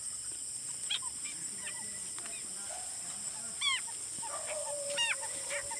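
Steady high chorus of night insects, crickets among them, with two short honk-like animal calls about three and a half and five seconds in.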